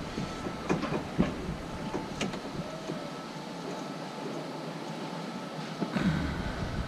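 A few short clicks and snips from a hand cutter trimming a hose end square, with a louder knock about six seconds in, over steady background noise.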